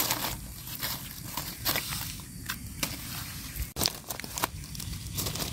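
Dry leaf litter and twigs rustling and crackling as hands work through them and feet shift on them, with several sharp crackles scattered through.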